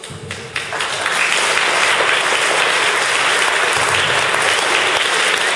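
Congregation applauding: a few separate claps at first, swelling into full, steady applause within about a second.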